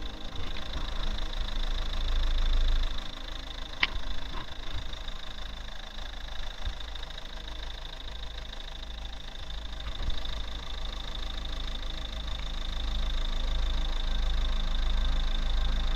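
Ford Mondeo MK4 2.0 TDCi four-cylinder diesel idling steadily while it runs on Liqui Moly Diesel Spülung injector cleaner fed from a bottle instead of the tank. There is a single sharp click about four seconds in.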